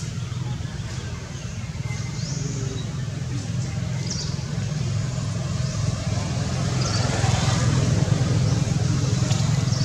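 Low, steady rumble of a motor vehicle engine that slowly grows louder, with a few faint short high chirps above it.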